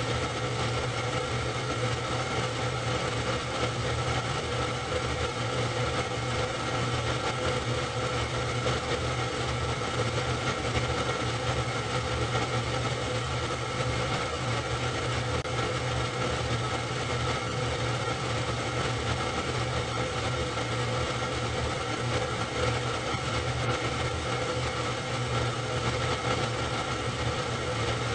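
Super 8 film projector running: a steady mechanical whirr with a constant hum that does not change across the cuts in the film.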